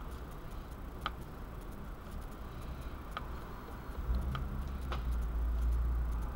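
Kitchen knife slicing a kabanos sausage on a plastic cutting board: four separate sharp clicks as the blade comes down on the board, spaced about a second or two apart. A low rumble underneath grows louder in the second half.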